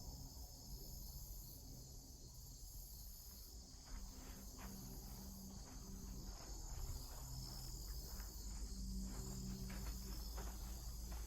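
Steady high-pitched chorus of insects in the woods, with scattered short clicks and rustles from about four seconds in.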